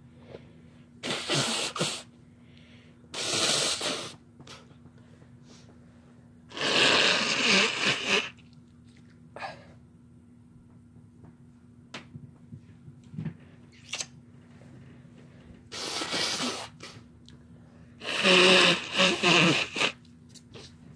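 People sneezing: about five loud sneeze bursts spread through the stretch, some coming two or three in quick succession.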